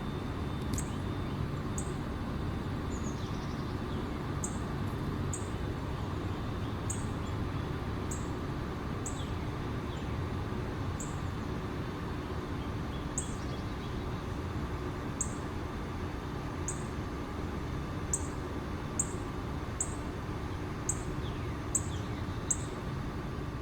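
Steady, distant low rumble of a jet airliner at high altitude. Over it, a bird gives a short, high chirp about once a second.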